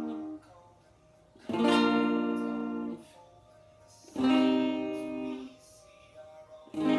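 Electric guitar played through a Fender Frontman 10G practice amp: a chord ringing at the start is cut off. Chords are then struck about a second and a half in, about four seconds in and near the end. Each rings for a little over a second before being muted, with quiet gaps between them.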